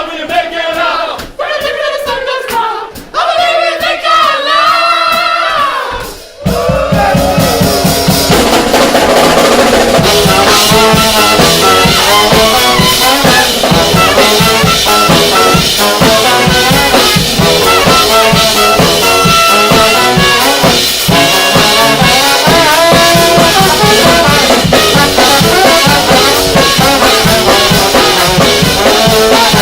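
Live brass band of trumpet, trombone, baritone saxophone and drum kit playing an uptempo rock cover. After a sparser melodic opening, the drums and full band come in about six seconds in and play on loudly.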